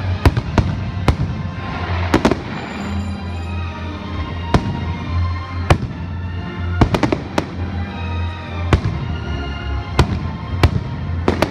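Fireworks display: more than a dozen sharp firework bangs at irregular intervals, some coming in quick pairs, with music playing underneath.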